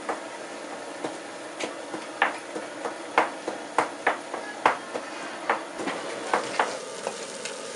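Steel ladle knocking and scraping against a steel kadai as a masala is stirred: irregular clinks, two or three a second.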